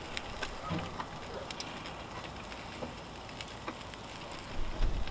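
Chicken pieces sizzling and crackling on the grate of a charcoal drum smoker as they are turned over, a steady hiss with scattered small pops. A duller low bump near the end.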